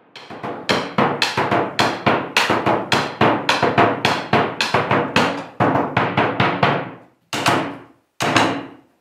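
A drum with a lit LED shell beaten with sticks: a fast, even run of strokes about four a second, each ringing out, slowing near the end to single hits about a second apart.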